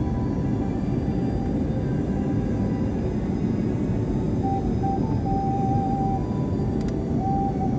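Airbus A330-300 cabin noise heard from a window seat on approach: a steady, loud rumble of the engines and rushing air. A thin whining tone comes in briefly about halfway through and again near the end.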